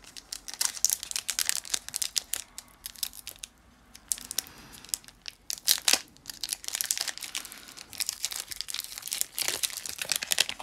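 Foil booster-pack wrapper being torn open and crinkled in the hands. Sharp crackles come in irregular runs, with a short lull about a third of the way in and denser crinkling near the end.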